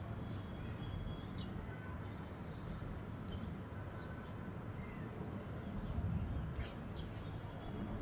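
Sparrows chirping faintly and sporadically over a steady low background rumble, with a couple of brief high hissy sounds about three seconds in and near the end.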